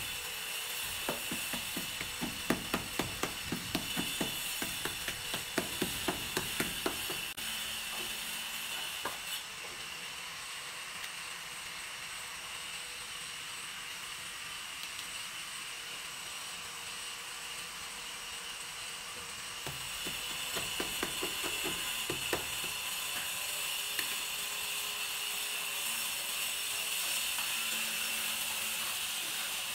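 Ceramic wall tiles being tapped down into their mortar bed: a run of quick taps, about two or three a second, for several seconds, then a few more taps later on. A steady high hiss runs underneath.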